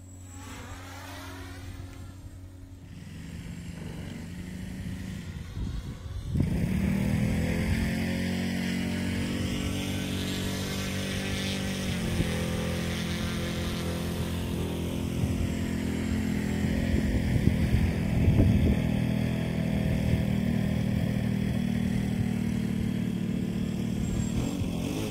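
A 250 mm quadcopter's motors and propellers buzzing in flight, the pitch sliding up and down with throttle. About six seconds in the buzz turns suddenly much louder and then holds steady.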